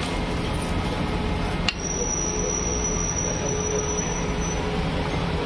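Steady background din of a dim sum stall. About a second and a half in there is a sharp clink, followed by a thin, high ringing tone that lasts a couple of seconds.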